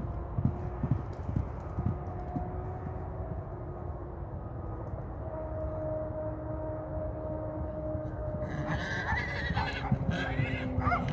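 A horse's hoofbeats as it gallops on soft arena dirt, strongest in the first couple of seconds. From about two-thirds of the way in, high calls that waver in pitch come in over them.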